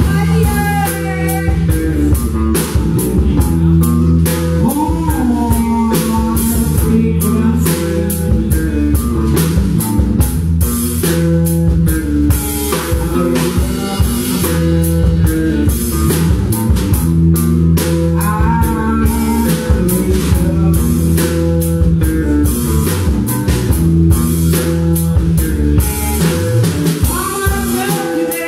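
Live blues-rock band playing: electric guitar over a drum kit keeping a steady beat, loud and amplified.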